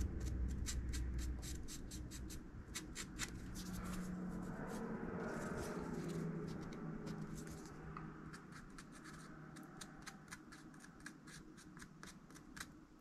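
A Sharpie marker scratching in many short, quick strokes on the edge of an aluminium tile trim, touching up its shiny cut ends. The strokes grow fainter toward the end.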